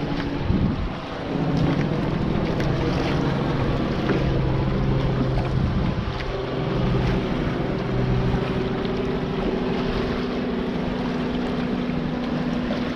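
Wind buffeting the action camera's microphone and water rushing past the hulls of a Taipan 5.7 sailing catamaran under way at about 9 to 10 km/h, with a steady low hum beneath the noise.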